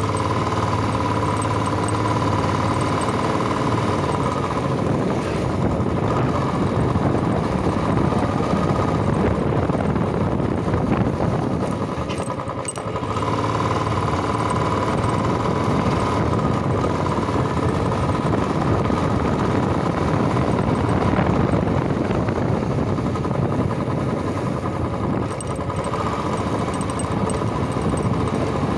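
Royal Enfield motorcycle engine running steadily while being ridden, mixed with road and wind noise; the sound dips briefly about twelve seconds in.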